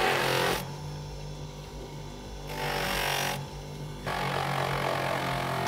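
A combination chisel and plane-iron sharpening machine runs with a steady hum while a 40 mm chisel is held against its spinning honing wheel to strip the burr off the freshly ground edge. Each contact gives a scraping hiss: one fading about half a second in, one around three seconds in, and one from about four seconds on.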